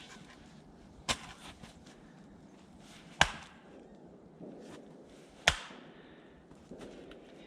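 An axe chopping firewood: three sharp strikes into wood, about two seconds apart.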